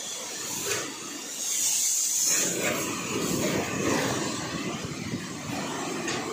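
High-pressure spray gun jetting disinfectant, with a hiss, over the steady running of the sprayer's motor-driven pump. It gets louder about a second and a half in.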